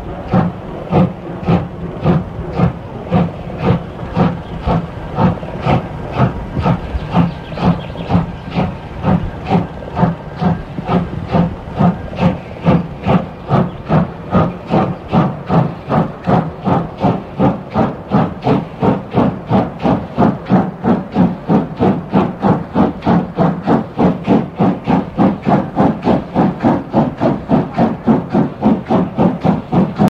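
Steam locomotive exhaust chuffing in a steady rhythm, the beats quickening from under two a second to about three a second as the engine gathers speed.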